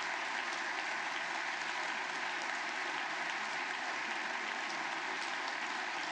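Audience applauding steadily, a dense even clapping that holds at one level throughout.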